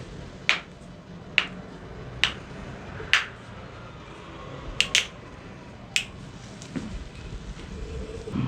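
Joints cracking during chiropractic adjustments: a string of about seven sharp, separate cracks. The first four come roughly one a second, then a quick pair and one more.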